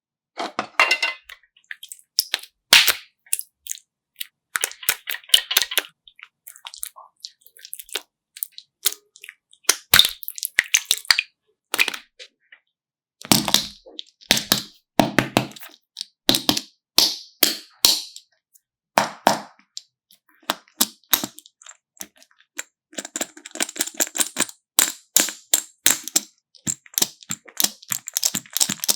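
Close-up handling noise: irregular sharp crackles and clicks in clusters with short gaps, growing dense and continuous in the last few seconds.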